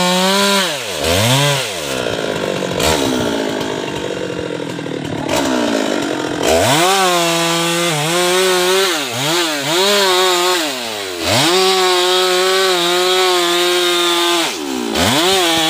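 Two-stroke chainsaw cutting into a guava trunk. It revs in two quick blips at the start, then runs at full throttle through the wood with its pitch dipping several times as the chain bites, easing off briefly near the end before revving again.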